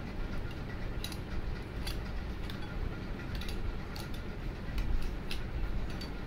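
Steel spoons clicking and scraping against small steel bowls as kheer is eaten: scattered light clinks at irregular moments over a steady low hum.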